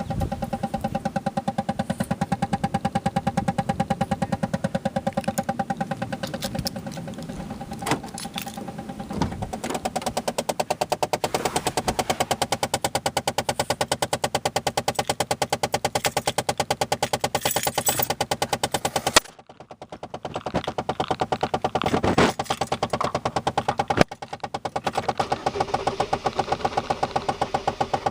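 Rapid, even clicking from the dashboard of a 2007 Chevrolet Malibu LS: a stuck climate-control door actuator whose internal gears slip against each other. The clicking breaks off briefly about two-thirds of the way through, and a single sharp knock follows a few seconds later.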